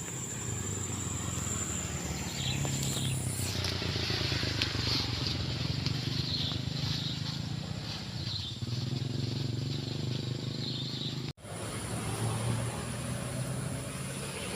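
Outdoor ambience dominated by the low drone of motor traffic, swelling and fading as vehicles pass. A high steady insect trill runs through the first few seconds, and repeated short high chirps follow in the middle. The sound cuts out for an instant about eleven seconds in.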